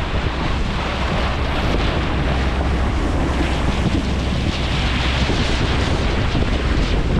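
Wind buffeting the microphone over water rushing along the hull of a sailboat moving through rollers, with a louder swell of wash about halfway through.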